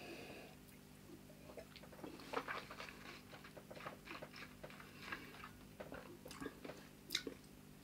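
A person sipping whisky and working it around the mouth while tasting: faint wet clicks and smacks of tongue and lips, scattered and irregular.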